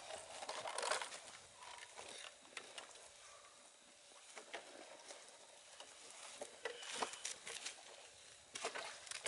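Snow being shovelled: a shovel blade scraping and crunching through snow, with scattered irregular strokes and a few louder scrapes.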